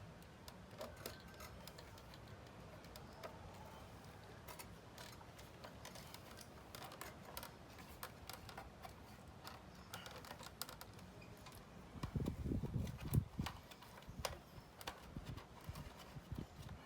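Faint, irregular clicks and taps of hand tools and small parts being handled during repair work on an electric scooter. About twelve seconds in comes a short cluster of heavier knocks.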